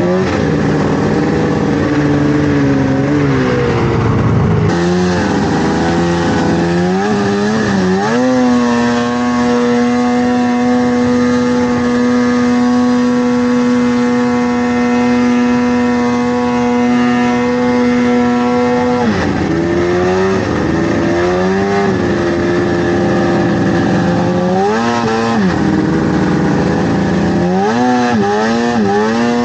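Vintage two-stroke snowmobile engine under way, its pitch rising and falling with the throttle. From about eight seconds in it holds a steady speed for roughly ten seconds, then eases off and revs up and down again.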